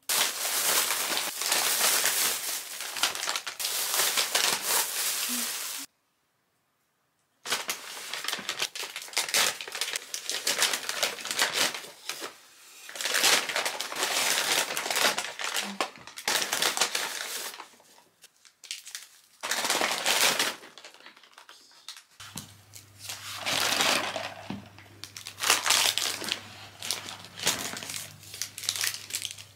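Plastic carrier bag and McDonald's paper takeaway bag rustling and crinkling in bursts as they are handled and opened, breaking off completely for about a second and a half around six seconds in. Near the end, the paper wrapper of a breakfast muffin crinkles as it is unwrapped.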